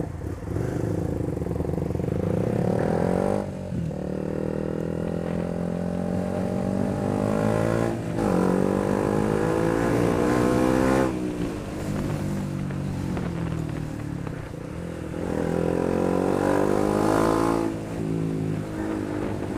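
KTM 125 Duke's single-cylinder engine under acceleration: the pitch climbs and breaks three times as it is shifted up through the gears, eases off, then climbs once more before dropping back near the end.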